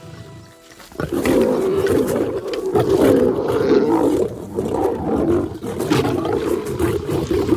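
Several lions growling and snarling in a squabble over a carcass, starting about a second in and going on loud and unbroken: aggression between feeding lions at a kill.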